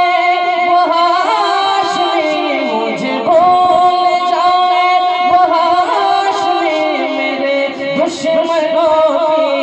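A naat being sung: one voice holding long notes that bend slowly from pitch to pitch, with no clear words.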